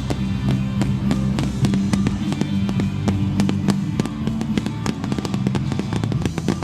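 Fireworks finale: a dense run of bangs and crackles, many each second, over music with sustained low chords.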